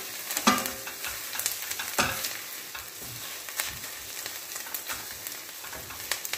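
Diced onions, green peppers and tomato and pepper paste sizzling in a stainless steel pan as they fry, stirred with a wooden spoon that knocks and scrapes against the pan every so often.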